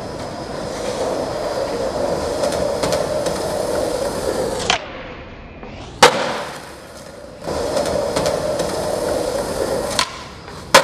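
Skateboard wheels rolling on concrete, with sharp cracks of the board about four and a half and six seconds in, the second one the loudest. Rolling resumes, then a tail pop about ten seconds in and a hard landing slam at the end.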